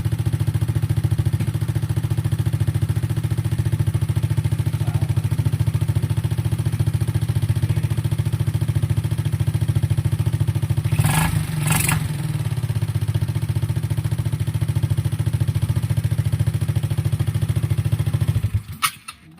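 Rusi Rapid scooter engine running steadily at idle after a carburettor cleaning and tune-up for hard starting. Two brief noisy bursts come a little past the middle, and the engine sound cuts off near the end.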